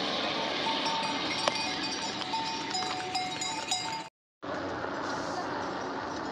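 Small bells ringing on and off, short clear tones, over a steady rush of background noise. The sound drops out completely for a moment about four seconds in.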